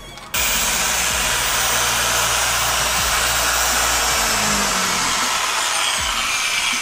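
Torq TorqX dual-action polisher running steadily with an orange pad on a car's painted hood, a loud even whir that starts abruptly about a third of a second in.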